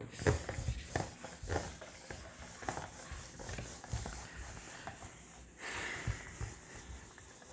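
Handheld whiteboard eraser wiping across a whiteboard, a run of uneven rubbing strokes with a longer swipe after about five and a half seconds.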